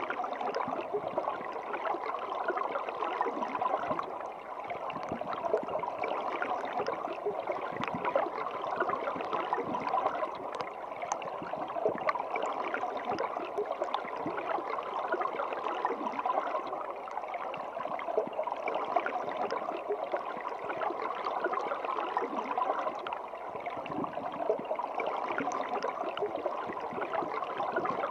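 Running water: a steady, continuous flow full of small splashes and trickles.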